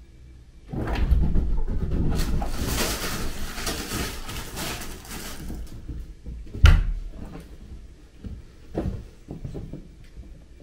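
Cats scuffling and scrabbling on carpet while play-fighting, then a single sharp thump against a wooden door about seven seconds in, followed by a couple of softer knocks.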